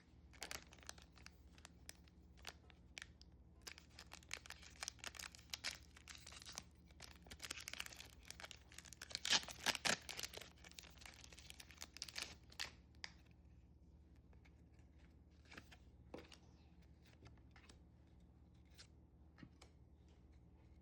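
Foil wrapper of a Pokémon booster pack being torn open and crinkled by hand, a dense run of crackling rustles loudest about nine to ten seconds in. After about thirteen seconds only a few faint rustles remain.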